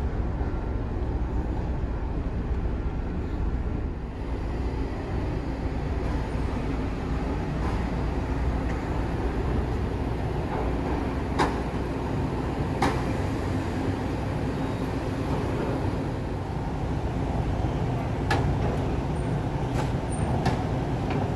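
Steady low rumble and hum of a large car ferry's engines and machinery, the C-class vessel Queen of Oak Bay. A few sharp clicks or knocks come in the second half.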